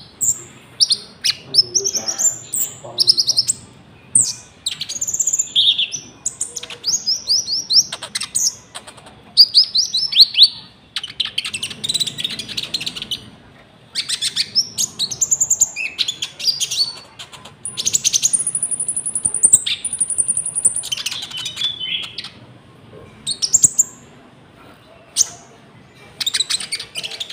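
A konin songbird singing vigorously, a fast run of high chirps, trills and whistled notes. Its song includes cricket imitation; near the middle comes a steady high buzzing trill of about two and a half seconds.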